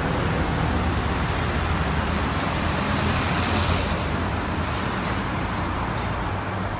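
Steady road traffic from a multi-lane city road below, with cars passing and a low engine hum. One vehicle passing swells louder about three and a half seconds in.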